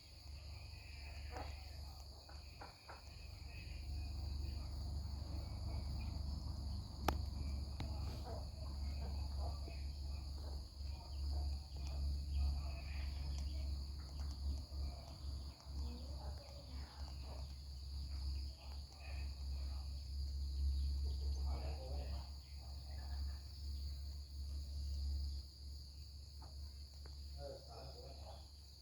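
Baby green-cheeked conure eating: scattered small clicks and short soft sounds over a steady low hum and a faint steady high whine.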